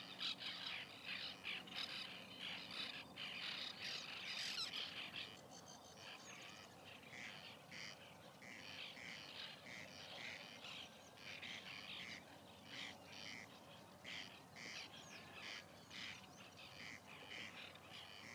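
A white-winged tern colony calling: a dense chatter of many short calls, busiest in the first five seconds, then thinner, repeated calls.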